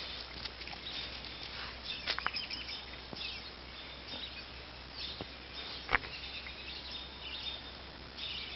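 German Shepherd puppy digging with its paws: short bursts of scratching and scraping in dirt every second or two, with a sharp click about six seconds in.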